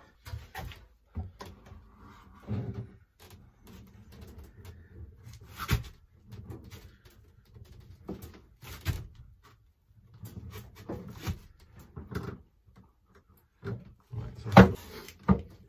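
A heavy bandsaw on a homemade dolly with small hinged casters being pushed across a wooden floor: the casters rumble and the base knocks and clunks in irregular thumps, loudest about a second before the end.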